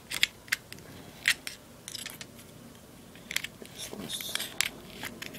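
Sharp small clicks and scratchy rustling as packed rayon cotton balls are picked out of a Zippo lighter's metal insert. There are several clicks in the first second and a half, a few more about three and a half seconds in, and short spells of scratching around two and four seconds in.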